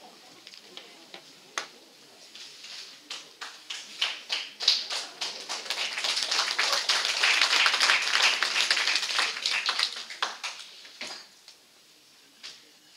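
Theatre audience applauding: a few scattered claps at first, building into full applause about five seconds in, then dying away to a last clap or two near the end.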